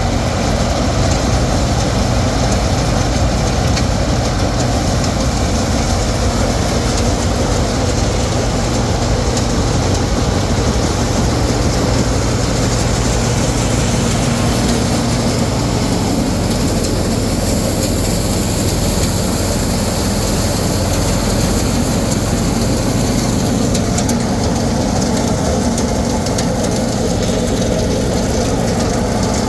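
Combine harvester running steadily and loudly while harvesting rice, a constant mechanical drone whose engine note shifts slightly about halfway through.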